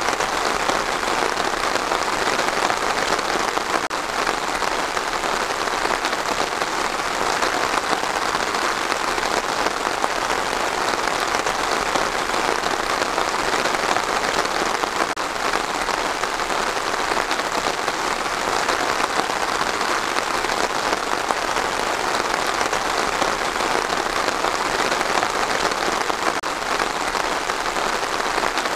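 Steady rain falling: an even, unbroken hiss of many drops, with no let-up or change in strength.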